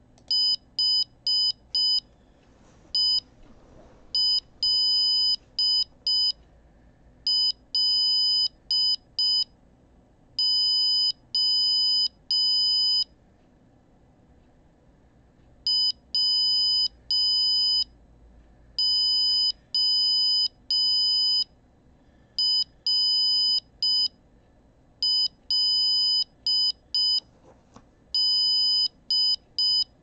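Arduino-driven piezo buzzer beeping "HELLO WORLD" in Morse code at about 5 words per minute, dot 240 ms. Short and long beeps of one buzzy high tone are grouped into letters, with a longer pause between the two words.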